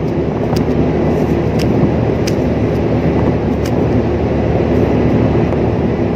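Loud, steady low rumble of a large ship's machinery, with scattered light taps as a freshly caught fish flaps on the steel deck.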